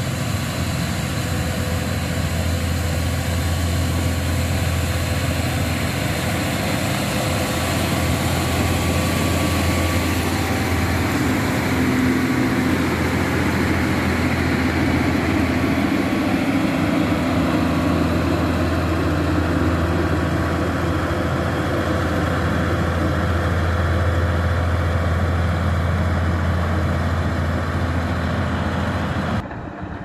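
Caterpillar 140G motor grader's diesel engine running steadily as the grader pushes and spreads gravel with its blade, a continuous low hum that grows louder in the middle as the machine passes close. Near the end the sound drops suddenly and turns thinner.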